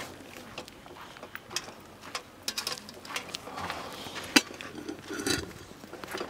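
Scattered light clicks and knocks, as of small objects being handled and set down. The sharpest click comes a little past four seconds in, followed by a short rustle.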